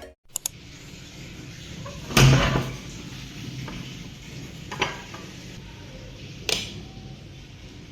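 Light handling noises: a pair of small clicks at the start, a louder knock with a short rattle about two seconds in, then single sharp clicks near five and six and a half seconds, over a low steady room background.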